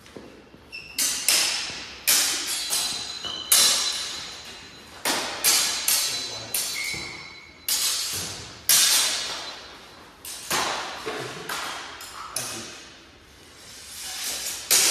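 Steel longswords clashing in sparring: a series of sharp metallic strikes, each with a bright ringing tail, often coming in quick pairs and threes.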